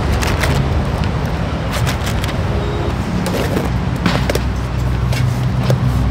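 Cardboard cartons being slit open with a box cutter and handled, with plastic flour packets crinkling: a run of sharp scrapes and clicks over a steady low rumble.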